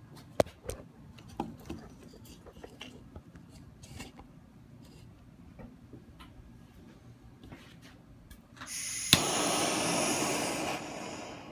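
Handheld gas torch on a small fuel cylinder: a few light knocks of glass and tools being handled, then near the end a loud rush of gas with one sharp click as the torch is lit, settling to a quieter steady hiss of the burning flame.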